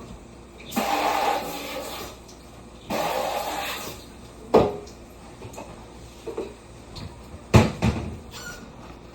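Kitchen handling of bowls and dishes: two rushing swishes about a second long each, then sharp knocks and clacks of crockery, loudest near the end.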